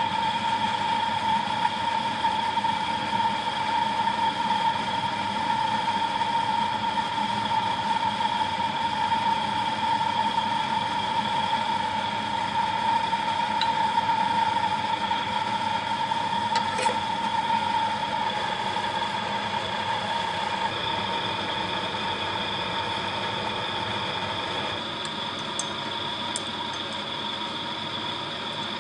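A small motor running steadily, with a prominent high whine over a mechanical drone; its tone shifts slightly about two-thirds of the way through.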